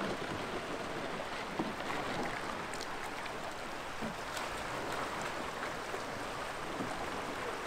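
Creek water rushing steadily through a shallow riffle around a canoe, with light splashes of paddles dipping.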